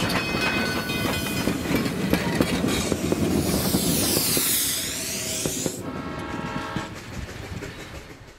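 Narrow-gauge steam locomotive 476 and its train passing close at slow speed: steel wheels clanking and rattling over the rails, with a high rushing sound as the cars go by and a brief ringing squeal about six seconds in, the sound fading as the caboose passes.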